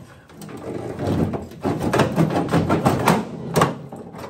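Rusted sheet metal in a VW Beetle's body being worked loose by hand: irregular rattling, scraping and knocking of the metal piece, with a sharper knock near the end.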